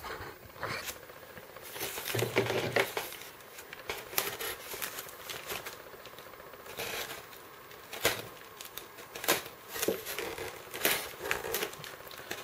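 Styrofoam shipping case and paper packaging being handled: irregular rustling, scraping and short clicks as a card and booklet are pulled from the foam lid, and a knife is put to the case near the end.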